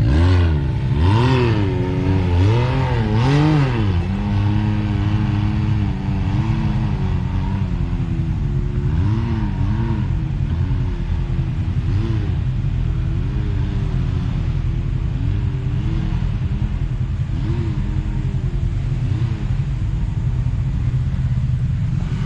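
Side-by-side UTV engine revving in quick bursts, four strong ones in the first few seconds, then idling with short throttle blips every couple of seconds as it crawls up a rock obstacle.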